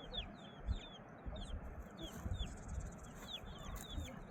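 Small birds chirping over and over in quick, short, falling notes, over the steady rush of fast river water.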